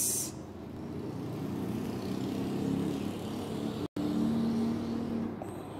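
A steady low mechanical hum with wavering pitch, like a motor running in the background. It cuts out completely for an instant near the middle.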